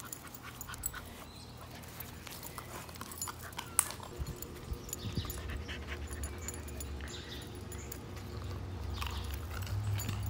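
Dogs panting and snuffling while nosing for plastic Easter eggs in the grass, with scattered clicks and one sharp click about four seconds in. A low rumble comes in about halfway and grows toward the end.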